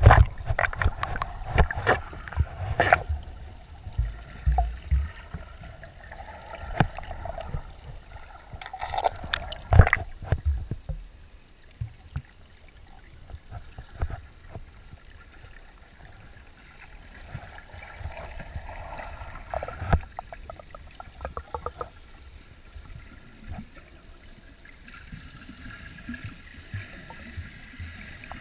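Water sloshing and gurgling around an action camera held at and under the surface of shallow sea water, heard muffled through its waterproof housing. Knocks and thumps come thick in the first ten seconds or so, then it settles to a quieter steady wash with scattered clicks.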